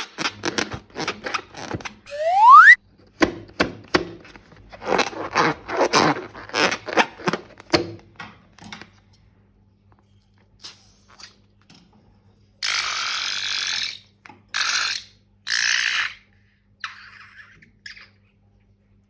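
Rubber balloons being handled with slime: rapid crackling and squishing, with a short loud rising squeal of balloon rubber about two seconds in. Later come three bursts of steady hiss.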